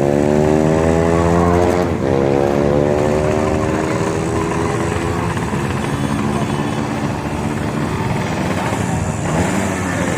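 Drag-racing motorcycles accelerating hard, the engine note climbing, dropping at a gear change about two seconds in, and climbing again before fading into a rough engine noise as the bikes pull away.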